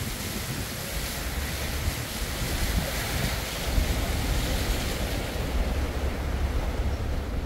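Storm wind buffeting the microphone: a steady rushing noise with an uneven low rumble that grows stronger about halfway through.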